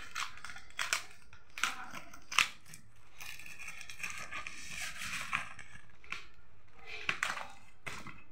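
Scissors cutting through plastic packing tape on a cardboard parcel, with sharp snips and clicks and a longer rasping cut midway, and the tape and plastic wrapping tearing and crinkling.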